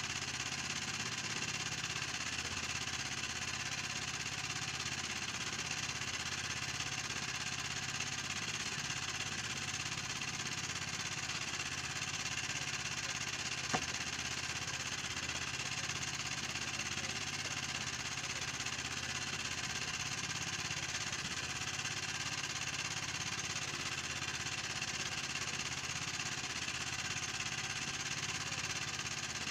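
A small engine running steadily, a constant drone with hiss over it. A single sharp knock cuts through about halfway.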